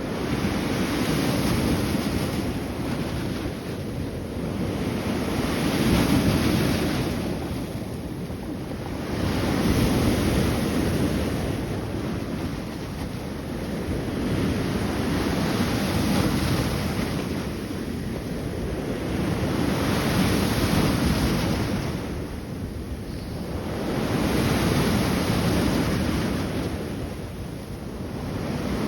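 Sea waves breaking on the shore: the surf swells and eases in a slow rhythm, about every four to five seconds.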